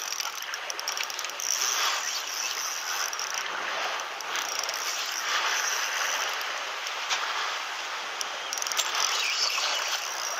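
Fishing reel running with a fine, rapid clicking over a steady hiss.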